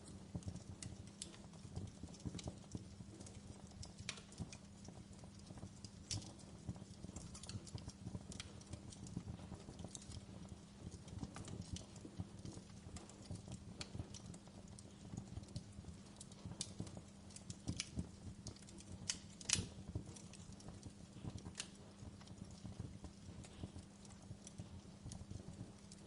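Wood fire crackling: irregular sharp pops and snaps over a low steady hum, with one louder pop about three-quarters of the way through.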